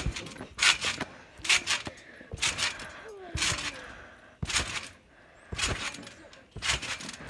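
Trampoline bouncing: a person jumping on the mat about once a second, seven landings in all, each a short noisy thud.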